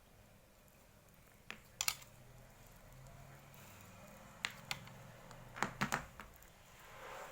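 A few sharp clicks and small handling noises from a crimping tool and UTP network cable being worked by hand, in short clusters about a second and a half in, around four and a half seconds, and near six seconds.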